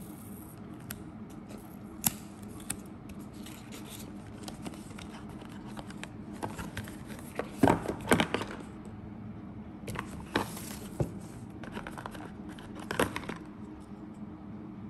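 Unboxing handling sounds: fingernails pick and tear at the plastic seal on a cardboard box, then the box flaps scrape open and plastic rustles, in scattered clicks and scrapes. The loudest scraping comes about eight seconds in. A low steady hum runs underneath.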